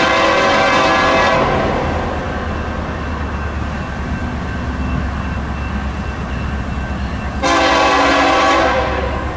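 Diesel freight locomotive's air horn sounding a long blast that fades out about a second and a half in, then a second, shorter blast near the end, over the steady low rumble of the passing train.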